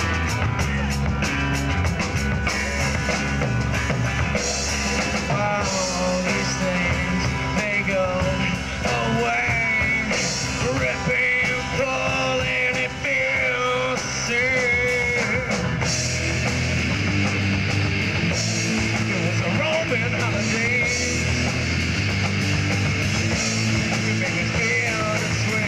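Live rock band playing electric guitars and a drum kit, loud and continuous, with a wavering lead melody standing out through the middle.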